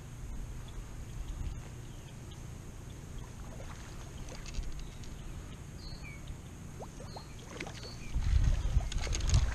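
Footsteps swishing through tall wet grass, with a steady low rumble. Near the end the steps get louder and heavier, sloshing as the walker wades into shallow floodwater.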